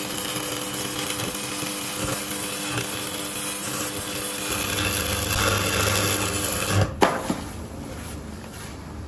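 A power tool running steadily, then a sharp knock about seven seconds in, after which the tool noise is quieter.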